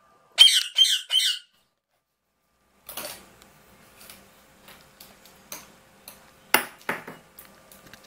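Indian ringneck parakeet giving three quick harsh squawks, then a run of light clicks and clatters as it rummages among plastic toys in a basket, the sharpest knocks coming a little over six seconds in.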